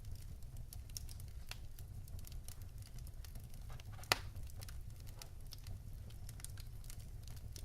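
Wood fire crackling in a fireplace: scattered small pops and snaps, one louder pop about four seconds in, over a low steady rumble.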